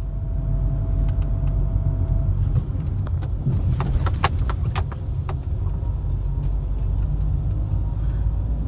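Low, steady rumble of a car driving along the road, heard from inside the cabin. A few short clicks or knocks come about three and a half to five seconds in.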